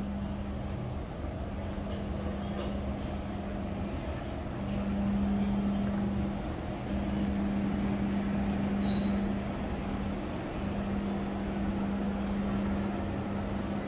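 City street ambience: a steady low rumble with a humming tone that breaks off briefly several times and resumes.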